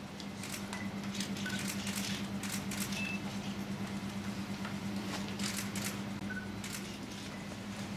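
Camera shutters clicking irregularly as press photographers shoot a posed cheque handover, with a steady low hum underneath.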